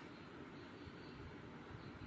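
Faint steady hiss with a low rumble: room tone.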